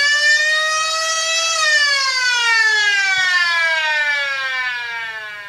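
Siren sound effect played from a smartphone's speaker: one long wail that rises in pitch for about a second and a half, then slowly falls away, fading near the end.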